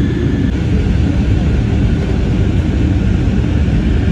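Steady airliner cabin noise in flight: a constant low rush of the jet engines and airflow heard from inside the cabin. A faint high whine stops about half a second in.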